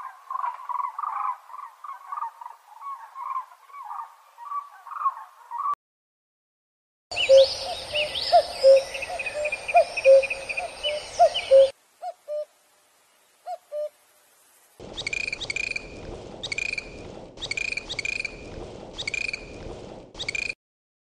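Three short animal-call recordings in a row, separated by silent gaps: first about six seconds of rapid chattering calls, then a few seconds of mixed bird calls over a run of short repeated notes, then a series of about nine evenly spaced single calls.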